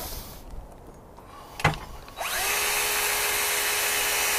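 Battery-powered ION hydraulic rescue cutter (jaws of life). A click is followed about two seconds in by its motor starting, with a rising whine that settles to a steady pitch as the tool runs its blades closed.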